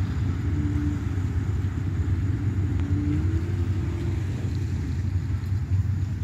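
Steady low rumble with the faint hum of a running engine showing twice, briefly near the start and again for about a second around three seconds in, rising slightly.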